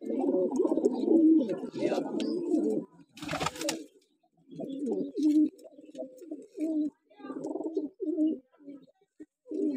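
A flock of domestic low-flyer (patti walay) pigeons cooing in overlapping, repeated bouts. There is a short rustling burst a little after three seconds.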